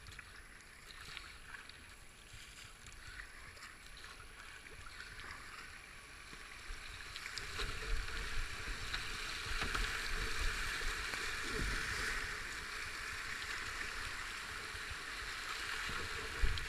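Kayak paddle strokes dipping into calm river water, then the rushing and splashing of a fast gravel rapid around the kayak's hull, which gets louder from about seven seconds in. A single thump near the end.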